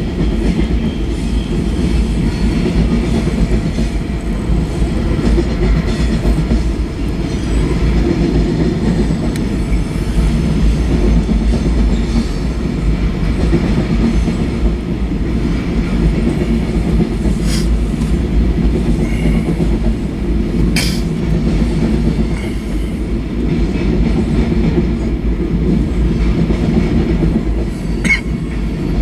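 Freight cars of a manifest train rolling past: a steady, dense rumble of steel wheels on rail, with a few brief sharp clicks in the second half.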